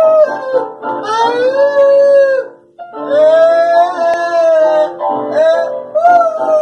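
Music: a series of long, held high notes, each lasting a second or two, with short breaks between them.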